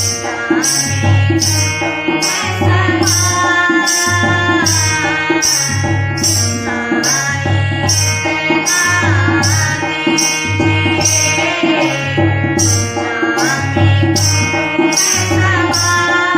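Indian devotional song accompaniment: tabla keeping a steady rhythm under a wavering melody line.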